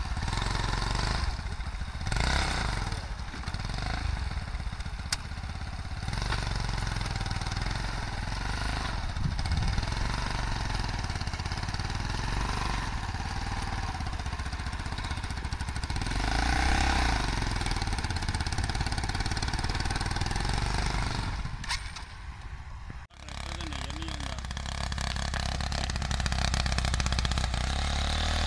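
Homemade 200cc mini tractor's small engine running steadily while pulling a trolley loaded with sacks. The sound drops out suddenly and briefly about four fifths of the way through, then the engine is heard running again.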